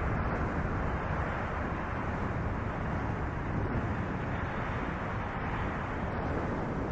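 Steady rushing noise of wind and rain as picked up by the camera's microphone, electronically processed into an effect sound, with its energy low and dull and almost nothing in the highs.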